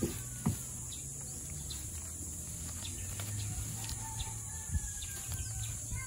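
Rural outdoor ambience: a steady high-pitched insect drone with faint bird chirps, broken by a few short knocks, one at the start, one about half a second in and one near five seconds.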